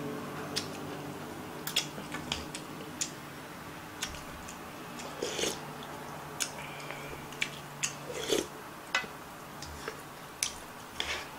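A person chewing and slurping ramen noodles up close, with irregular wet smacking clicks from the mouth, a few a second.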